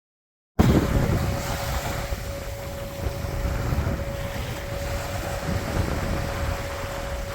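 Wind buffeting the microphone in a gusty low rumble, with a steady hum running underneath; it cuts in abruptly about half a second in.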